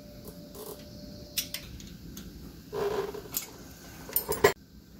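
Hand wrenches clicking and scraping on metal as offset bellhousing dowel pins are locked in position with a spanner wrench and an Allen wrench. There are scattered sharp metallic ticks, a short louder scrape about three seconds in, and a few sharper clicks near the end.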